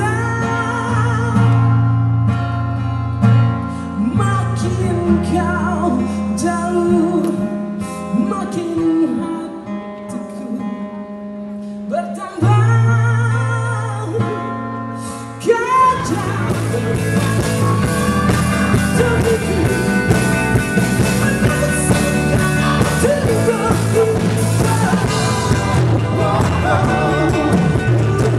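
Live pop-rock band with a singer performing. A softer passage with sustained bass notes and the vocal line gives way, about fifteen seconds in, to the full band playing louder and denser.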